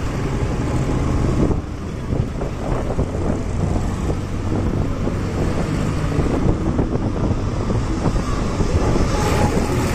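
Wind buffeting the microphone over the rumble of a moving motorcycle and surrounding road traffic.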